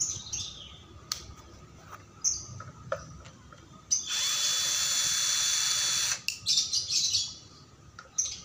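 Benz Werkz BZ-8004 cordless drill-driver backing screws out of a plastic fan motor housing. It runs in short bursts, with one steady whining run of about two seconds midway, followed by several quick bursts. A few light clicks fall between the runs.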